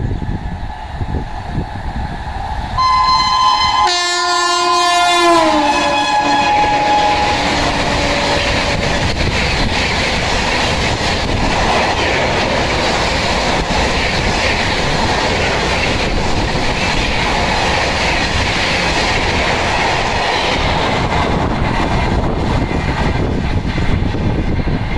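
A WAP7 electric locomotive's shrill horn sounds a long blast about three seconds in, its pitch dropping sharply as the locomotive passes at about 130 km/h. The horn fades into the steady rush and clickety-clack of the Rajdhani Express coaches going by at speed.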